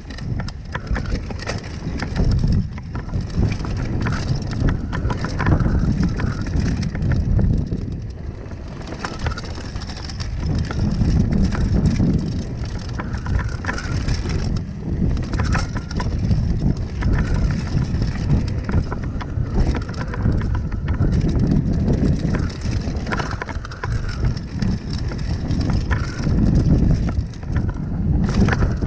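Mountain bike descending a dry dirt trail: knobby tyres crunching over the dirt and the bike clattering over bumps, with wind rushing on the microphone, in surges as the speed rises and falls.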